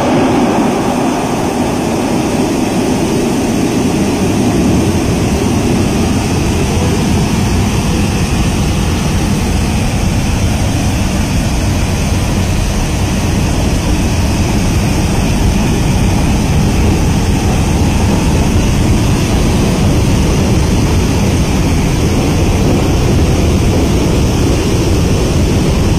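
Water discharging in bulk through Tarbela Dam's spillways and tunnels: a loud, steady rush with a deep rumble, unchanging throughout.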